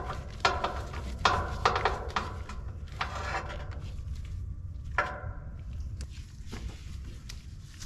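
Socket and extension clinking against the pump's cap bolts as they are fitted and run down by hand, a handful of sharp metallic clicks in the first five seconds over a steady low rumble.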